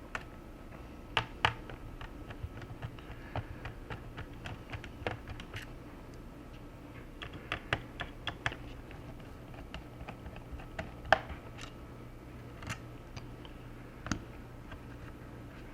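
Irregular small clicks and taps of a screwdriver, screws and the plastic case of an Asus X54c laptop as its hard drive cover is unscrewed and the drive is worked loose, a sharper click about a second in and another about 11 seconds in, over a steady low hum.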